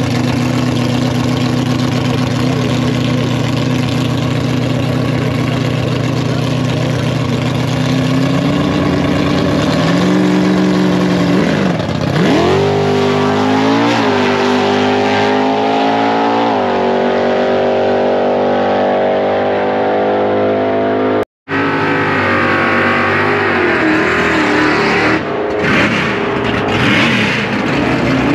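Stock and Super Stock drag cars' engines held at a steady high rpm for about eight seconds, then revving up and launching, the pitch climbing in steps through the gears before falling away down the track. About three quarters of the way through the sound cuts out for an instant, and engine noise resumes.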